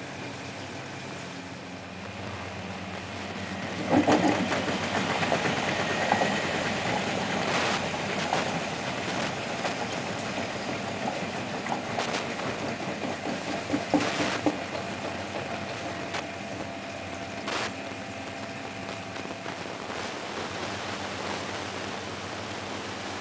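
Miele Hydromatic W734 washing machine running a test wash: a steady motor hum with the drum turning and water swishing. From about four seconds in it grows louder for roughly ten seconds, with several knocks and clatters, then settles back to the steady hum.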